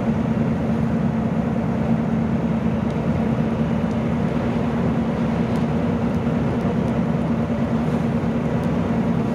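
Fire engine's diesel engine running steadily with a constant hum, over the rushing noise of burning semi-trucks, with a few faint pops.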